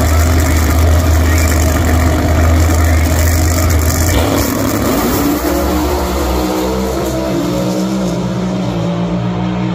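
Drag racing cars' V8 engines idling loudly at the start line, a deep steady rumble. About four to five seconds in, the sound changes to higher, pitched engine tones.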